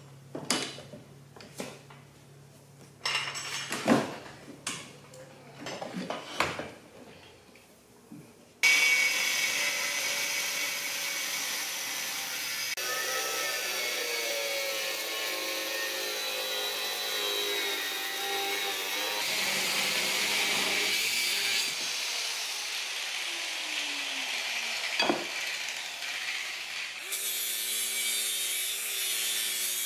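A few scattered knocks and clanks of metal parts being handled, then, starting suddenly about nine seconds in, a small high-speed rotary tool cutting into a metal mounting plate with a continuous high-pitched whine and grind. Near the end the sound changes as a cordless tool with a cut-off wheel takes over the cut. The cuts remove an inch from the outboard motor's mount so that the motor sits lower.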